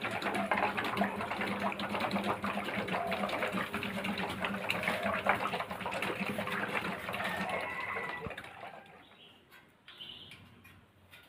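Spinning bicycle-wheel rig with plastic bottles belt-driving a small motor: a steady mechanical rattle of many rapid clicks over a low hum, fading away about eight seconds in. A few short high squeaks follow near the end.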